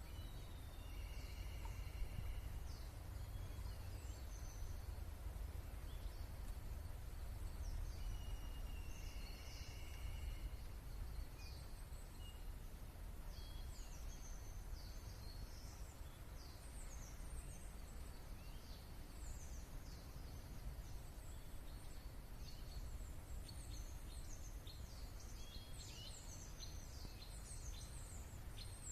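Several wild songbirds calling: many short, high chirps scattered throughout, growing denser near the end, with two drawn-out buzzy trills, one about a second in and one about eight seconds in, over a steady low rumble.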